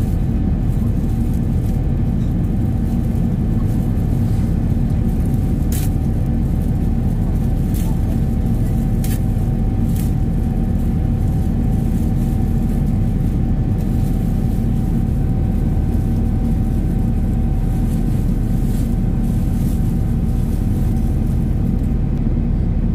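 Steady cabin noise inside an Airbus A330-900neo climbing out after takeoff: a low rumble of the Rolls-Royce Trent 7000 engines and rushing air, with a faint steady hum. A few faint clicks come between about six and ten seconds in.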